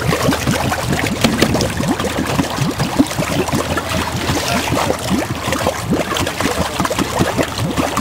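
A running vehicle's exhaust bubbling and gurgling steadily through the muddy water that covers the tailpipe.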